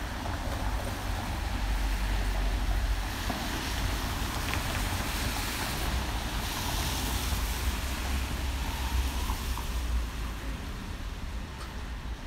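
Traffic hiss from car tyres on a wet street, swelling in the middle as a car passes, over a low wind rumble on the microphone.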